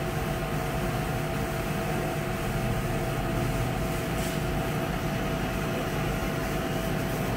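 Steady cabin noise of a car sitting at idle with the air conditioning blowing, with a faint steady whine running through it.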